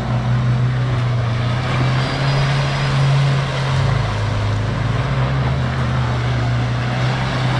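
Off-road SUV engine running steadily under load as it drives through deep mud, with a small drop in pitch about four seconds in.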